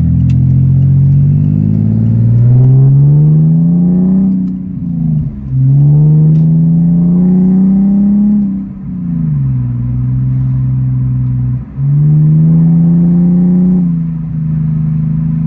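BMW E46 with catless headers and a custom 4-inch single-exit Greddy muffler and Vibrant ultra-quiet resonator, accelerating through several pulls heard from inside the cabin. The exhaust note rises in pitch, drops at each gear change, jumps up again about twelve seconds in, and falls away near the end.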